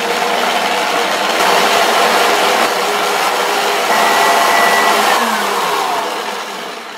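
Stand mixer running at speed, its wire whisk beating a thick butter-and-sugar batter in a steel bowl. Near the end the motor winds down and the sound falls away with a dropping pitch.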